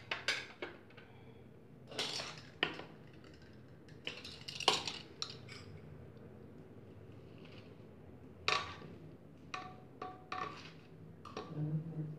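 A spoon and ladle clinking and knocking against glass bowls and a metal pressure cooker in scattered, irregular strikes, a few of them leaving a short metallic ring.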